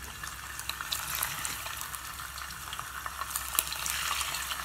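Chunks of beaver meat frying in hot oil: a steady sizzle full of sharp crackles and pops. It grows louder near the end.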